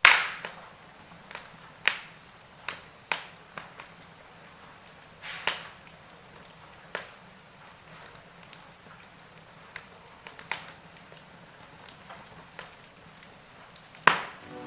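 Wood fire crackling: irregular sharp pops a second or two apart over a faint hiss, the loudest right at the start and just before the end.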